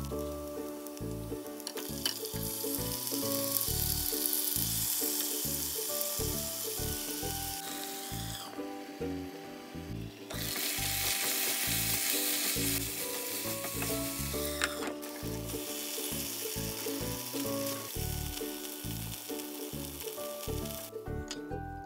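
Onions and chicken frying in ghee in a pan: a steady sizzle that stops for about two seconds some eight seconds in, then returns, with a few light clicks of a spatula against the pan. Background music with a steady beat plays throughout.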